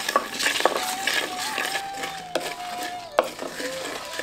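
A spoon stirs and scrapes whole spices and garlic cloves as they roast in a pan, with a few sharp knocks of the spoon against the pan. A faint held melody plays underneath.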